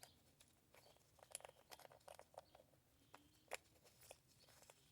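Near silence with faint, scattered small clicks and ticks of metal parts being handled, as the carburetor's main jet is turned in by hand into the float bowl.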